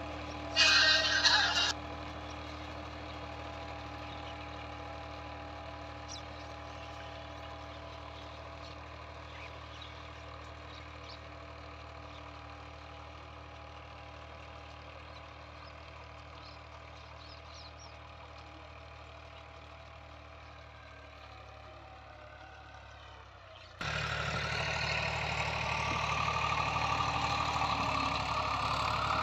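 Massey Ferguson 260 diesel tractor engine running steadily under load while pulling a disc harrow, slowly fading as it moves away. A brief, loud, high-pitched sound cuts in about half a second in. At about 24 s the engine turns suddenly much louder and closer, its note rising.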